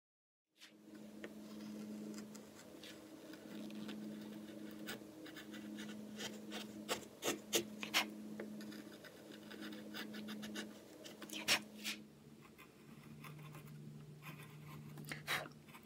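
Hand carving gouge paring wood, cutting the flutes of a carved shell: repeated short scraping cuts with sharp clicks and snaps as chips break away, starting about half a second in. A low steady hum sits underneath.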